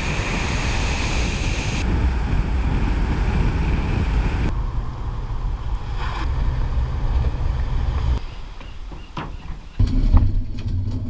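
Wind rushing over a camera mounted outside a moving vehicle, with steady low road rumble. Near the end, a few sharp knocks.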